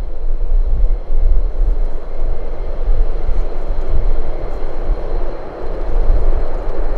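Four F-16 fighter jets taking off together in formation, their jet engines making a loud, steady rumble.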